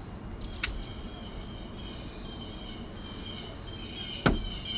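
Birds chirping in the background, with a small click about half a second in and a single sharp knock near the end.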